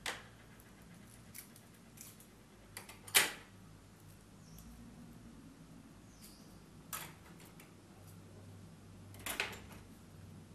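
A few scattered clicks and knocks of small objects being handled on a table, the loudest about three seconds in, over a faint steady low hum.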